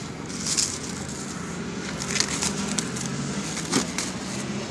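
Plastic wrap crinkling and rustling as it is handled on a cardboard box, in a few scattered crackles over a steady low hum.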